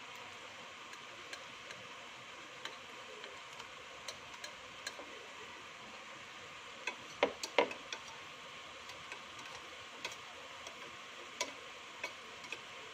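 Banana halves frying in hot oil in a stainless steel pan, a steady faint sizzle, with metal tongs clicking against the pan as the pieces are moved and turned. A quick cluster of louder clinks comes about seven seconds in.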